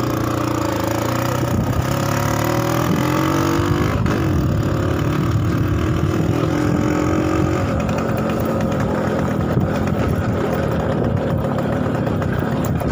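TVS M80 moped's small two-stroke single-cylinder engine running while riding on a rough dirt track. Its pitch rises and falls in the first few seconds, and there is a sharp knock about four seconds in.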